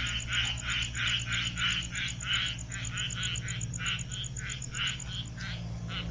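Frogs calling from a pond in a quick repeated series, about three calls a second. A fast high ticking runs above them and stops near the end.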